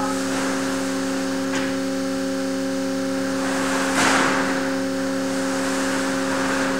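Steady multi-pitched hum from the steel beam load-testing rig, with a faint click about a second and a half in and a sudden short burst of noise about four seconds in that fades away over about a second.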